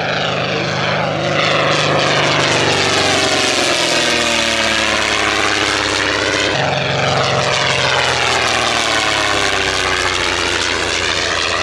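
Propeller-driven vintage racing aircraft flying past, a steady piston-engine and propeller drone. The tone sweeps as the aircraft passes, then breaks off about halfway through, and a second pass begins.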